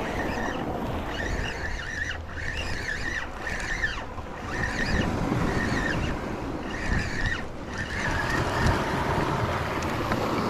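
Spinning reel being cranked steadily to bring in a hooked fish, with a short repeated whirr about once a second. Wind on the microphone and small waves lapping underneath.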